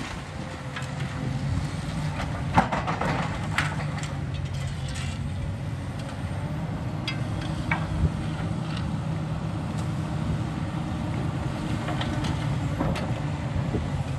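Heavy demolition machinery's diesel engine running steadily, with sharp cracks and clattering of debris breaking now and then, the loudest about two and a half seconds in and about eight seconds in.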